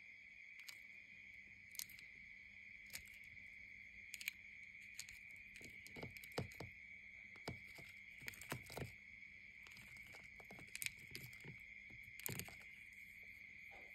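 Steady high-pitched trill of crickets, with scattered light clicks and taps, a cluster of them in the middle and another near the end.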